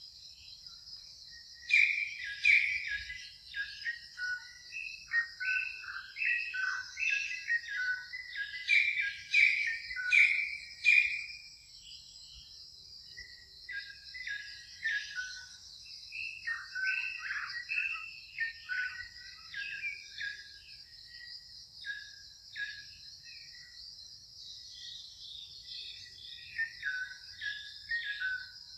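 A steady, high insect drone with clusters of short, high chirping calls over it, the calls thinning out for a moment about a third of the way in before starting again.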